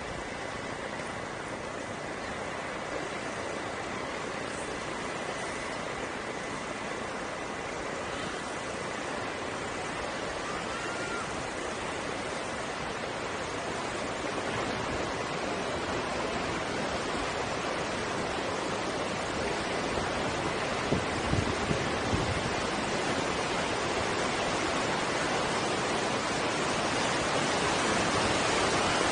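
Water of the Petitcodiac River tidal bore rushing and churning, a steady wash of noise that grows gradually louder as the bore comes in, with a few brief sharp spikes about two-thirds of the way through.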